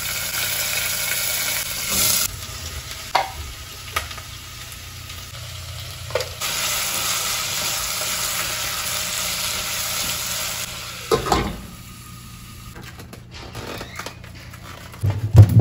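Hot oil sizzling in a stainless steel pot as whole spices and green chilies fry. From about six seconds in a louder sizzle comes as chopped red onions fry and are stirred with a wooden spatula, and it stops suddenly a few seconds later. A sharp knock comes near the end.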